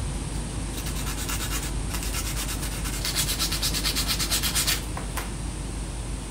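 A 120/180 nail file rubbed in quick back-and-forth strokes against a clear plastic false nail tip, a rapid rasping that stops about five seconds in, followed by one light tap.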